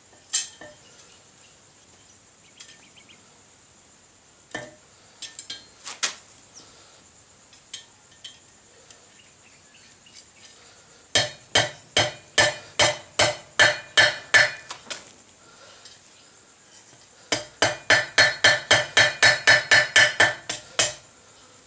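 Hand hammer striking steel, peening over the head of a rivet: a few scattered knocks, then two quick runs of ringing blows, the second run faster, about four to five strikes a second.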